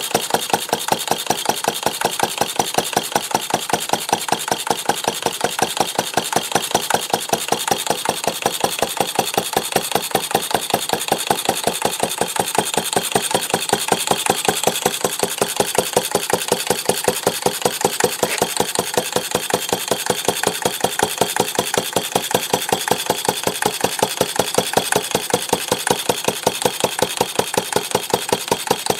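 Stover/Duro AC 1/2 HP single-cylinder antique stationary engine running steadily, with an even, rapid beat of firing strokes.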